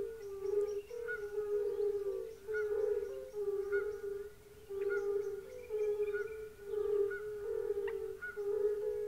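A chorus of many European fire-bellied toads (Bombina bombina) calling: countless short, clear, low notes overlapping into a pulsing carpet of sound. The chorus dips briefly about halfway through, and fainter, higher calls are mixed in above it.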